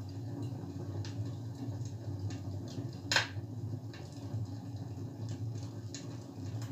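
Recorded fireplace crackle playing through a television's speakers: a steady low hum with scattered snaps and pops, one louder snap about three seconds in.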